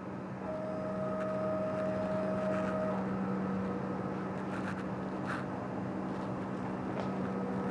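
DTF printer with Epson printheads running a nozzle check print: a steady machine hum, with a motor whine for the first few seconds as the cap station lowers and the print carriage moves, and a few light clicks later on.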